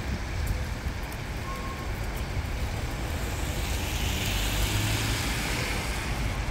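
City street traffic: a city bus and cars driving past with a steady low rumble, swelling in the second half as a vehicle comes close.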